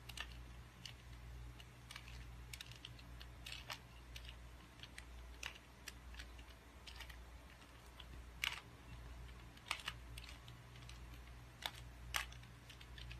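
2x2 Rubik's cube being turned by hand: faint, irregular plastic clicks and clacks as its layers are twisted, roughly two a second.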